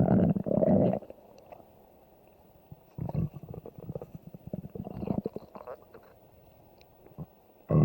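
Stomach growling: a loud low rumble that stops about a second in, then after a pause a broken run of gurgles and rumbles from about three seconds in, dying away around six seconds.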